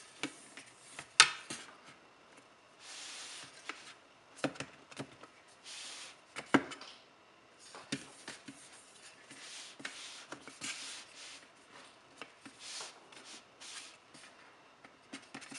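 Fondant smoother rubbed in repeated strokes over fondant covering a foam ball, a series of soft swishing passes. A few sharp knocks come between them, the loudest about a second in.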